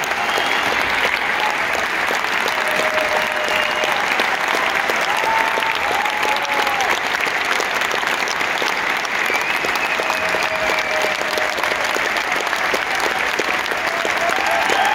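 Concert-hall audience applauding steadily, dense clapping with a few voices calling out over it.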